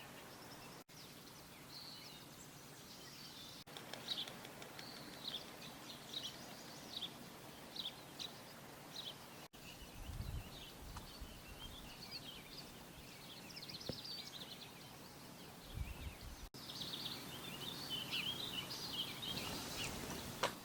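Songbirds chirping and calling in short bursts over a steady outdoor hiss, busier near the end, with two brief low rumbles of wind on the microphone.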